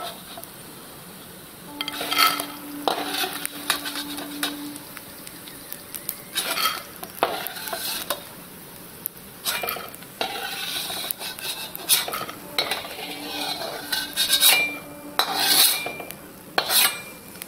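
Perforated metal skimmer scraping and clinking against a metal kadhai as puffed edible gum (gond) is scooped out of hot ghee. Soft sizzling of the ghee goes on underneath.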